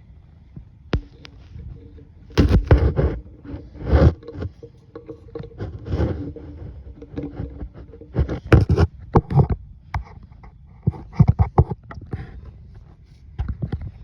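Irregular knocks, clatters and scrapes of objects being handled, with a faint steady ringing tone for a few seconds in the middle.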